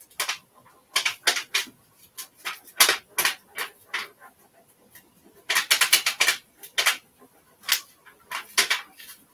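Clear plastic transfer backing sheet crinkling and crackling as it is rubbed down and peeled back off an old handsaw's steel blade, in short irregular bursts with a busier flurry a little past the middle.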